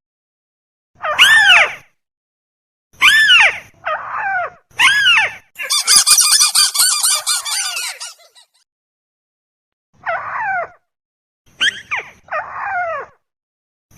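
Lure recording of a tikusan bird calling: short harsh calls, each rising and then falling in pitch, given one after another with pauses. Around the middle comes a longer, dense, rattling run of calls lasting about two seconds.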